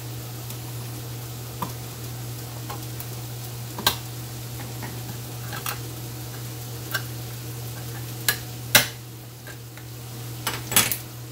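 A spoon stirring tomato pasta sauce in a pot on the stove, with a few sharp knocks of the utensil against the pot, the loudest around two-thirds of the way through and another cluster near the end. A steady low hum runs underneath.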